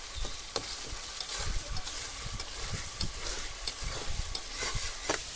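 Spatula scraping and stirring thick masala in a kadhai, with irregular scrapes and clicks against the pan over the sizzle of the frying masala.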